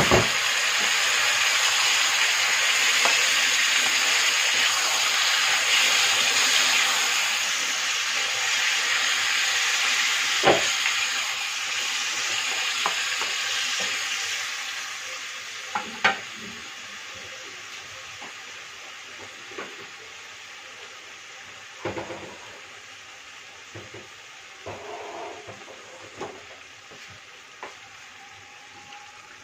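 Chicken pieces sizzling in an aluminium frying pan, the sizzle loud at first and fading steadily. A wooden spatula stirs them, knocking sharply against the pan several times.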